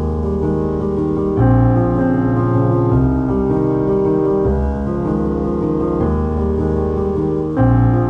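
Background piano music: slow, sustained chords changing about every second and a half.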